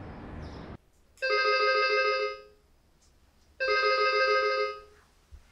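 Intercom ringing with an electronic ring tone, two rings each about a second and a half long with a short pause between: a call from the gate's security post going through to a resident's apartment.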